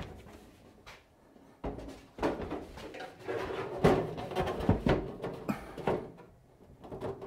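Stainless steel range hood being lifted and pushed up against the underside of wooden cabinets for a dry fit: a run of irregular knocks, clunks and scraping handling noises that begins about a second and a half in and dies away near the end.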